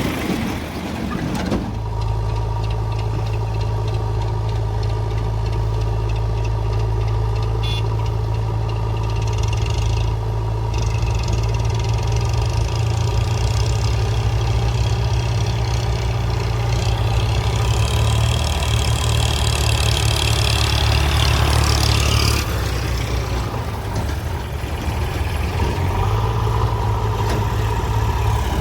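Heavy diesel engine running steadily. About seventeen seconds in it works harder for some five seconds, with a louder, hissing note over the hum, then eases back.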